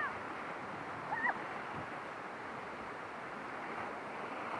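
Whitewater rapids rushing steadily around a raft, with one short, high wordless yelp from a rafter about a second in.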